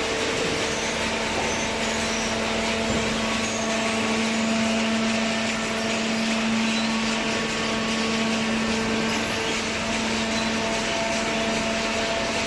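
Horizontal hydraulic cardboard baler running: a steady machine hum with several held tones over a constant hiss.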